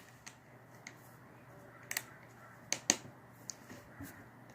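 Faint, scattered clicks and taps of small tools and parts handled while a smartphone is taken apart, with two quick pairs of clicks in the middle.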